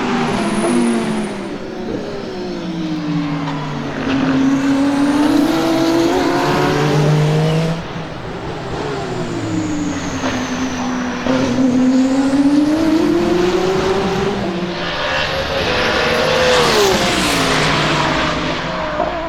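Alpine A424 LMDh hypercar's twin-turbo V6 racing past on track, its engine pitch rising and falling with the gear changes, heard across a few separate passes.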